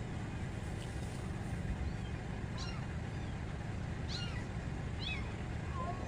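Kittens mewing: several short, high-pitched, falling mews, more frequent in the second half, over a steady low rumble.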